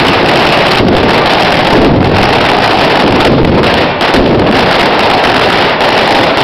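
A dense, unbroken barrage of firecrackers and bangers going off together, loud enough that it fuses into a steady roar that overloads the microphone.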